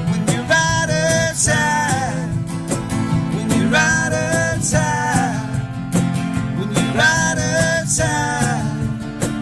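Acoustic guitar band music with a sung melody, held notes rising and falling over steady strummed accompaniment.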